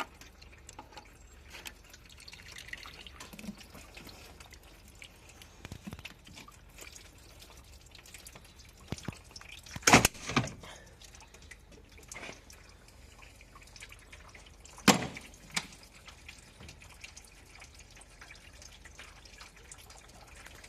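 Coolant dripping, with scattered small drip ticks. About ten seconds in there is a loud double knock, and another sharp knock comes about five seconds later.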